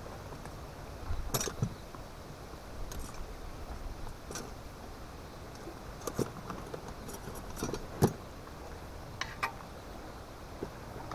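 Scattered light clicks, taps and rustles of hands handling food and packaging while preparing a sausage on a bun, with a sharp tap about eight seconds in.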